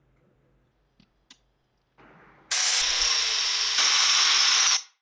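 Angle grinder running with a non-woven abrasive buffing wheel polishing a steel square tube: a loud, steady grinding hiss with a high whine that starts suddenly about halfway in and cuts off abruptly near the end. Two faint clicks come shortly before it.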